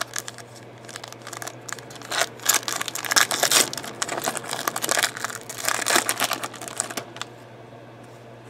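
Clear plastic trading-card pack wrapper crinkling and tearing as it is pulled open by hand, in irregular crackles from about two seconds in until about seven seconds in.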